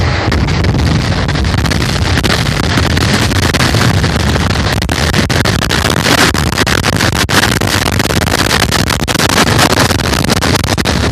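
Dense fireworks barrage: many shells and firecrackers going off at once as a continuous mass of crackling and bangs, with a low rumble underneath and no break.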